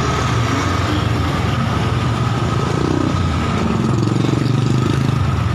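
Excavator's diesel engine running steadily, its pitch rising and falling briefly about halfway through as it takes load, with a steady high whine over it.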